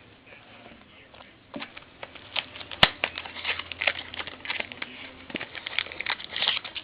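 Baseball trading cards and their packaging being handled, with quick papery rustles and light clicks. It starts about a second and a half in, with one sharp click about three seconds in.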